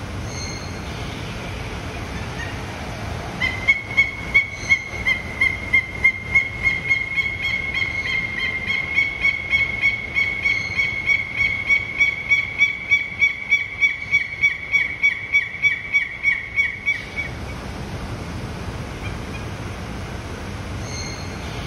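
Peruvian thick-knee calling: a long run of quick, high, whistled notes at a steady pitch, about three a second, starting a few seconds in and going on for about thirteen seconds before stopping abruptly. A steady background hiss runs underneath.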